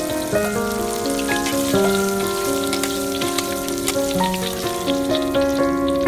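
Tofu triangles deep-frying in hot oil in a wok, a dense, steady crackling sizzle, over gentle acoustic background music with held notes.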